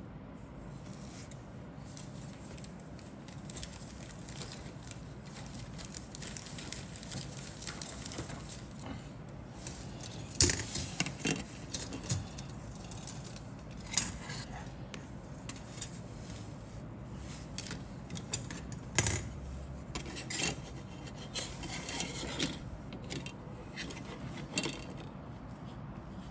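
Plastic model-kit sprues being handled on a cutting mat: steady rubbing and rustling, with sharp clicks and knocks every few seconds from about ten seconds in as the parts are moved and set down.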